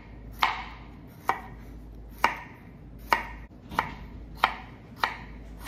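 Knife slicing a green bell pepper into strips on a wooden cutting board: a sharp knock each time the blade meets the board, about eight strokes at a steady pace of a little more than one a second.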